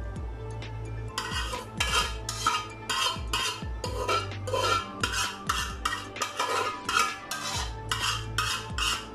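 A metal spoon scraping and clinking against steel pots, over and over, as chicken masala is scooped out of one pot and spread over rice in another. The strokes start about a second in and come several a second.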